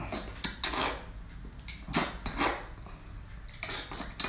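A person slurping and sucking boiled octopus tentacle into the mouth in several short, noisy slurps.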